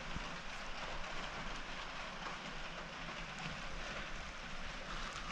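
Steady background hiss and low rumble, with no distinct events.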